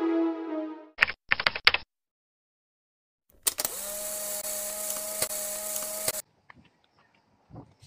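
Old-film countdown leader sound effect. A few sharp clicks, a short silence, then about two and a half seconds of hiss with a steady tone and a tick about once a second, cut off suddenly. Electronic background music ends in the first second.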